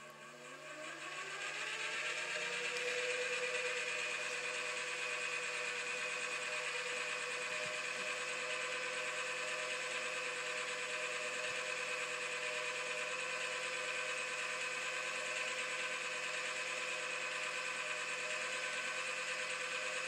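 Woodmaster planer-molder's feed-roller drive starting up, rising in pitch over about two seconds, then running steadily with a whine. It is a dry test run with the cutter head off and the knife raised, so only the feed rollers drive the curved blank through.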